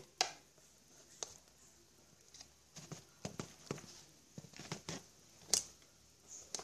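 Irregular light clicks and taps of fingers and a small metal tool working at the RCA jack panel on the back of an active subwoofer cabinet as the panel is pulled loose. The sharpest click comes just after the start, and another comes near the end.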